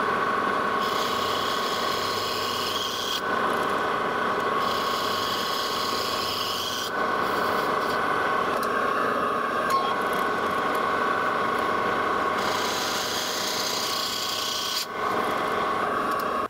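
Metal lathe turning a brass casting while a boring bar cuts its inside face, a steady machine whine under the cut. A higher hiss comes and goes three times as the cut goes on.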